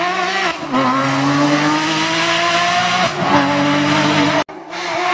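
Porsche GT3 RS rally car's flat-six engine at full throttle, its pitch climbing steadily with quick upshifts about half a second in and about three seconds in. Near the end the sound cuts off abruptly and another burst of engine noise starts.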